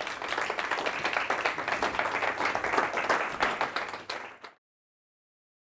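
Audience applauding, the clapping cut off suddenly about four and a half seconds in.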